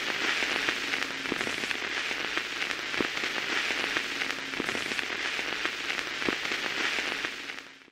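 Steady hiss scattered with sharp crackles, fading out near the end.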